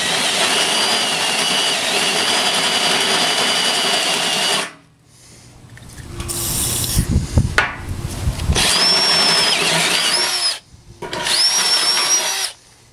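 Cordless drill boring a large hole through the steel of a tractor loader bucket with a Silver & Deming bit. It runs steadily for about four and a half seconds and stops, there are some low knocks, then two shorter runs with a rising whine near the end as the bit breaks through.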